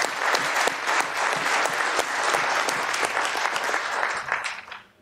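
Audience applauding, a mass of hand claps that fades and stops near the end.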